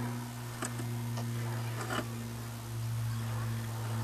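Radio-controlled scale Unimog rock crawler's electric drive motor and gearbox, a steady low hum as it crawls. A few sharp clicks come as it works over the rocks, the loudest about two seconds in.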